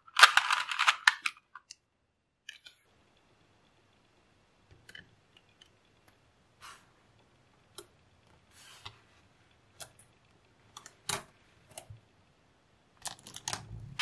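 Small magnetic metal balls clicking and snapping together as they are handled: a dense clatter in the first second or so, then scattered single clicks, and a quick run of clicks near the end.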